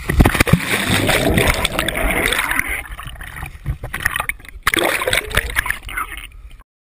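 Water splashing and churning close around a GoPro in its waterproof housing as a swimmer plunges into a lake and thrashes at the surface: a loud splash at the start, easing after a few seconds, then a second burst of splashing about five seconds in. The sound cuts off abruptly near the end.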